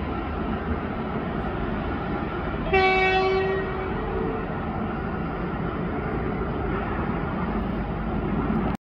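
A horn sounds once, about three seconds in, for a little over a second, over a steady background rumble.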